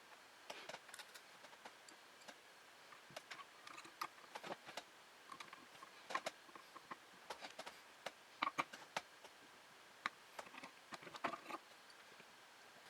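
Scattered light clicks and taps of small hard computer parts being handled and fitted during a PC assembly, coming at an uneven pace with a few sharper knocks about eight and eleven seconds in.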